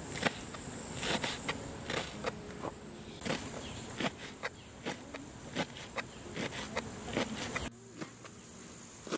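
A knife chopping leeks against a metal tray: irregular sharp chops, about one or two a second, with insects buzzing behind.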